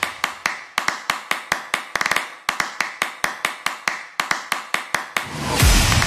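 Background music in a stripped-down break: a fast run of dry tapping clicks, about five a second, with no bass. The full beat with a deep bass drum comes back in about five seconds in.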